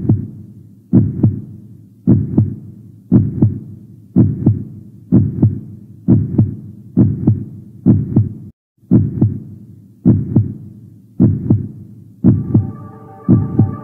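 Heartbeat sound effect on the soundtrack: a deep, loud double thump (lub-dub) repeating about once a second, a slow steady pulse. About twelve seconds in, sustained musical notes come in over the beat.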